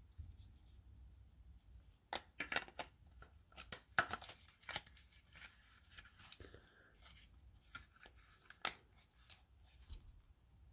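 Plastic casing of a Milwaukee M12 6.0 Ah lithium-ion battery being pressed back together by hand around its cell pack: a run of sharp plastic clicks and scraping, loudest about four seconds in.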